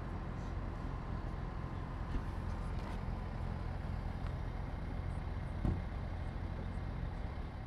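Steady roadside traffic rumble in an outdoor car park, with one short knock a little past the middle.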